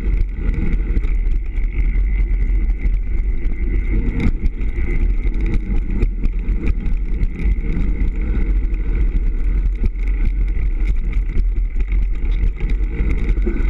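Mountain bike descending a rough dirt trail, heard from a camera mounted on the rider: a steady rush of wind on the microphone with constant rattling and knocking from the bike and mount over the bumps.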